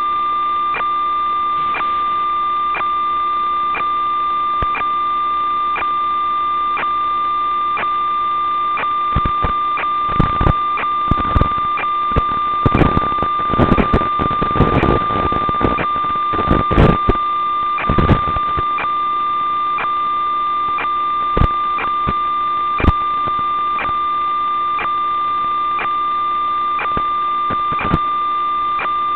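Steady electronic tone with faint ticks about once a second: the audio-channel noise of an analog FPV video link as captured by the DVR, with no microphone sound. Bursts of crackle break in from about 9 to 18 seconds in.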